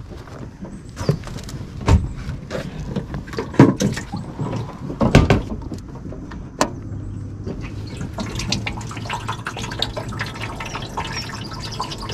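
Water splashing and dripping, with several sharp knocks about every one to one and a half seconds in the first half. After about seven seconds it turns into a steady run of small drips and splashes.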